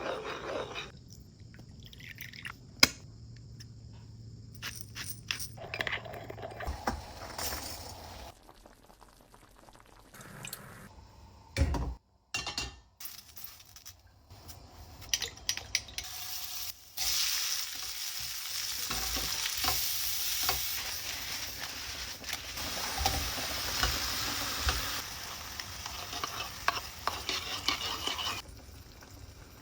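Kitchen cooking sounds in short cut-together clips: utensil knocks and clicks, then food sizzling in a pan while it is stirred, a steady hiss through most of the second half.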